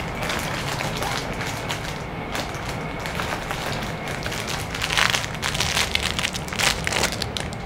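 Crinkling of the thin plastic wrappers on packaged Tastykake Krimpets snack cakes as hands rummage through a crate of them and pull one out, with louder crackles about five and seven seconds in, over a steady low hum.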